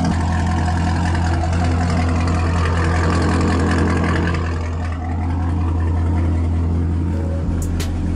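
Chevrolet Camaro's engine idling steadily through its exhaust with a deep, even drone. A few sharp clicks come in near the end.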